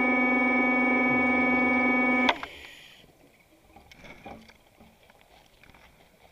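A steady synthesizer drone holds one note and cuts off abruptly with a click about two seconds in. After that there is near silence with a few faint scattered clicks.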